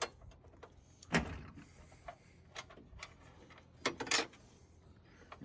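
Light metallic clicks and knocks of a metal mounting bracket being handled and fitted into place against a truck's front frame: one sharp knock about a second in and a short cluster of knocks near four seconds.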